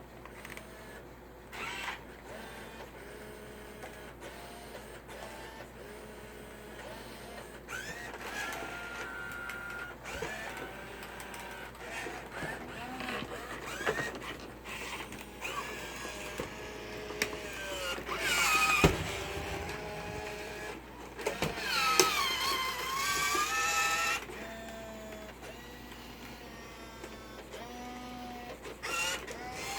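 Robosapien V2 toy robot's small electric gear motors whirring in stops and starts as it moves, the whine gliding up and down in pitch. Louder stretches come a little past halfway and again about three quarters through.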